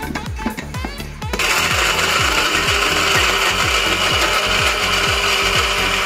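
Small electric grinder switched on about a second and a half in, then running steadily as it grinds almonds, pistachios and walnuts into coarse crumbs.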